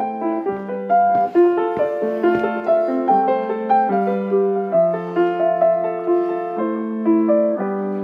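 Piano playing a slow melody of single notes, a few a second, over low notes held for a second or two.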